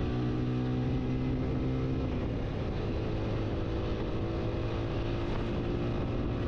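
TVS Apache RTR 160 4V's single-cylinder engine running at a steady pitch while the motorcycle is ridden at an even speed, the note shifting slightly about two seconds in.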